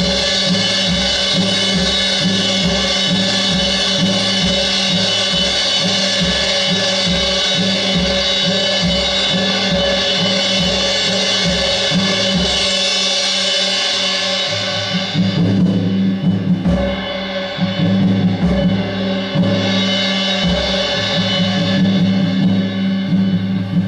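Live improvised percussion: a steady bass-drum pulse under a sustained wash of ringing cymbals. About 15 seconds in, the cymbal wash fades and the low drumming grows busier.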